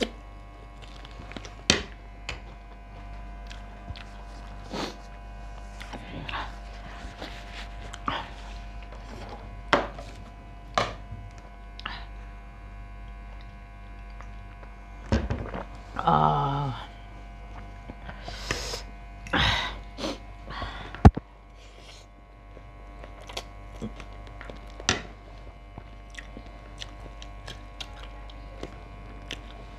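Close-miked eating: chewing and slurping of spicy instant noodles with scattered clicks of a fork and spoon on the plates, over a steady electrical hum. About halfway through there is a pause to drink from a plastic bottle, with a short mouth or voice sound, and a sharp knock a few seconds later is the loudest sound.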